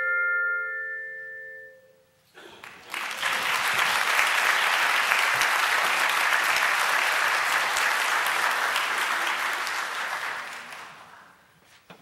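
Handbells' final chord ringing out and dying away over about two seconds, then audience applause that fades out near the end.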